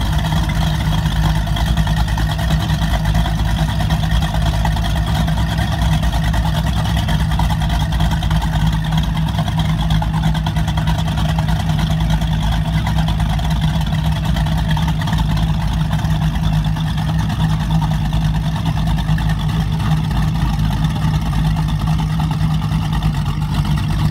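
Baja Outlaw 33 SST offshore powerboat idling steadily, its exhaust note low and even with no revving.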